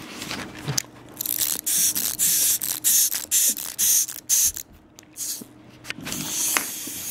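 Crinkly plastic candy wrapper handled close to the microphone, rustling in about half a dozen short hissy bursts.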